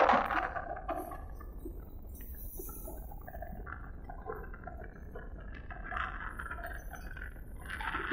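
Caterpillar backhoe loader running, a low steady hum with faint, scattered light clinks over it.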